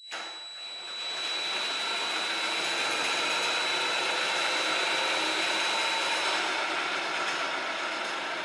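DeWalt cordless drill spinning a lawnmower blade on a balancing rig's shaft, run up for a vibration reading. The whir starts abruptly and builds over the first second, then holds steady. A thin high whine drops out about six seconds in, and the sound eases slightly after that.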